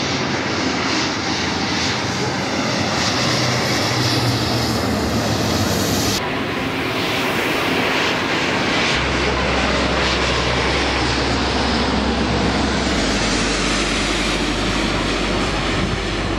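Jet airliners on landing approach passing low overhead: a loud, steady engine roar. The sound changes abruptly about six seconds in.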